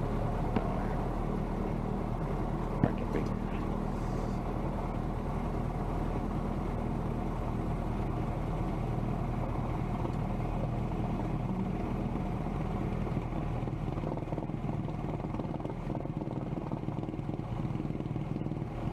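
Cessna 172M's four-cylinder Lycoming engine and propeller running steadily at low taxi power, heard from inside the cabin, with two light clicks in the first few seconds.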